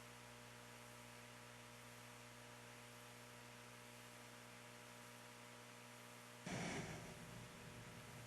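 Near silence with a steady low electrical mains hum from the sound system. About six and a half seconds in, a short rush of noise, like a breath at the microphone, briefly rises above it.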